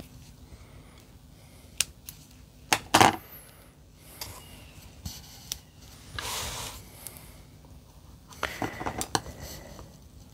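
Craft tools clicking and knocking on a work mat, with a sharp knock about three seconds in and a short rustle of paper a few seconds later. Near the end comes a quick run of scissors snips cutting a thin paper strip.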